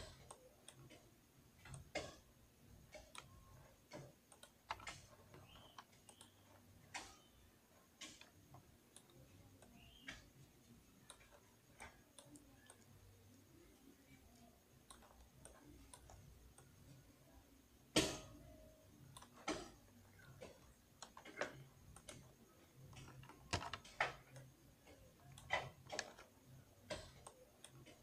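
Scattered clicks of a computer keyboard and mouse, irregular, roughly one or two a second, with one louder click about two-thirds of the way in.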